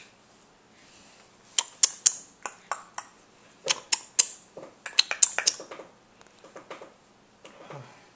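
A quick, irregular run of sharp clicks and clinks, about twenty in four seconds, followed by faint soft voice sounds near the end.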